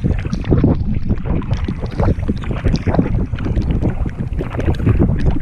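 Canoe paddle strokes, with water splashing and dripping off the blade, under steady wind buffeting the microphone.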